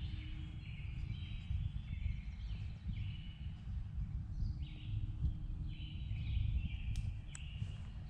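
Spring woodland ambience: songbirds singing repeated phrases about a second long over a steady low rumble of wind on the microphone, with one sharp click about seven seconds in.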